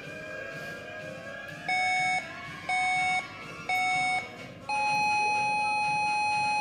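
Gym workout timer counting down: three short beeps a second apart, then one long, slightly higher beep signalling the start of the workout.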